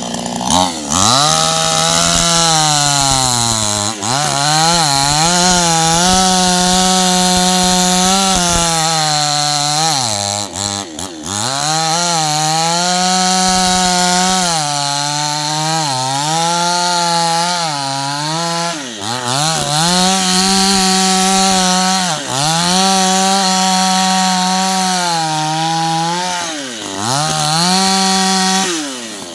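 Two-stroke chainsaw cutting into a coconut palm trunk, running at high revs with the engine pitch sagging and recovering about eight times as the throttle eases and the chain loads in the fibrous wood. The engine winds down near the end.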